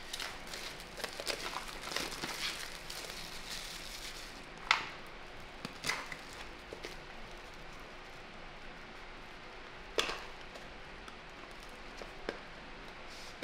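Thin plastic shrink-wrap crinkling as it is peeled off a small cardboard box, then a few sharp clicks and taps as the cardboard box is opened and handled.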